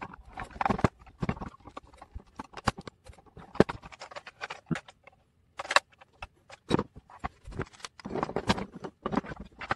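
Parts of a 1:32 Siku Control32 RC truck model clicking, clattering and knocking as it is taken apart by hand: a run of irregular sharp clicks.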